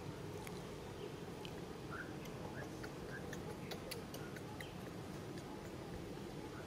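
Steady outdoor background noise with scattered faint clicks and a few brief high chirps, bunched mostly in the middle few seconds.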